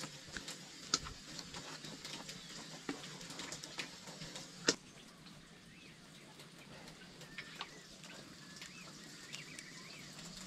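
Scattered light clicks and knocks, with one sharper knock about halfway through, over a faint steady hum; faint chirping bird calls come in near the end.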